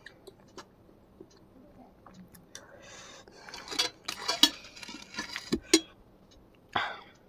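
Scattered clicks and clinks of a fork and ceramic plate being handled, mixed with mouth sounds of eating, busiest about four to six seconds in, with a short hiss near the end.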